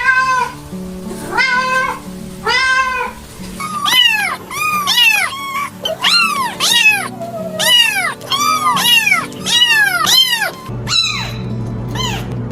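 Domestic cats meowing over and over, each call rising and then falling in pitch. The calls are spaced out at first, then come quickly, about two a second, from about four seconds in. Steady background music plays underneath.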